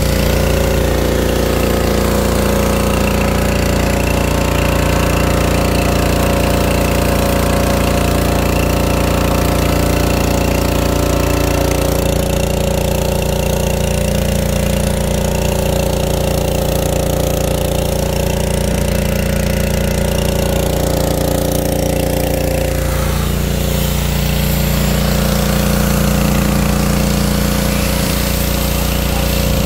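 Pressure washer running at a steady pitch throughout, with the hiss of its water spray hitting the car's body.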